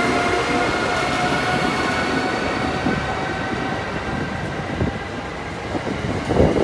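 Amtrak passenger train led by an ACS-64 electric locomotive rolling past: a steady rumble and rush of wheels on rail, with a whine that fades over the first few seconds. Near the end comes a cluster of wheel clacks over the rail joints.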